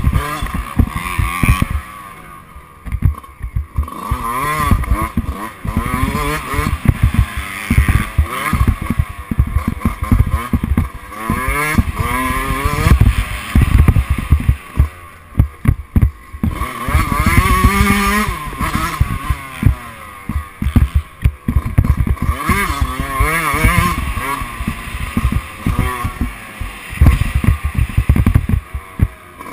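Dirt bike engine heard from on board, revving up and down again and again as the rider works around the motocross track. Heavy wind buffeting on the microphone runs under it.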